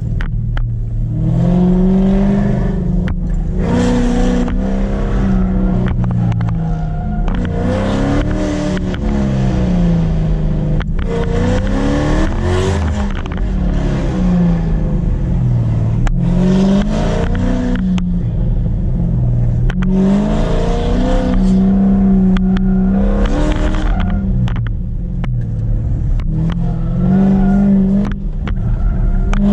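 V8 car engine run hard through an autocross course, its pitch climbing and dropping again and again as the car accelerates, lifts and brakes between the cones.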